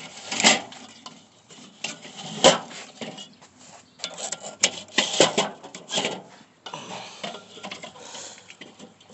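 Steel cooking grate of a charcoal kettle grill being turned with metal tongs. It scrapes and clanks against the kettle in irregular strokes, with a few sharp knocks. The grate is being spun so it burns clean over the hot coals.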